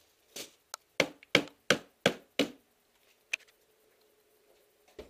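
A quick run of about six sharp knocks, one every third of a second or so, then a single lighter tick and quiet.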